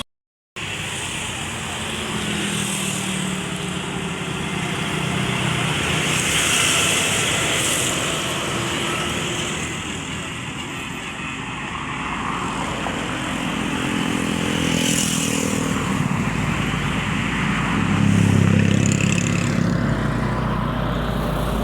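Bus engines running and moving past amid road traffic noise, with a louder, deeper engine near the end as a bus comes close.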